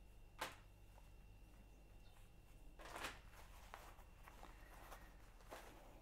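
Faint rustling and soft knocks of a stiff steel-boned corset being handled and unfolded on a table: a short sharp rustle about half a second in, a longer one around three seconds in, and a smaller one near the end.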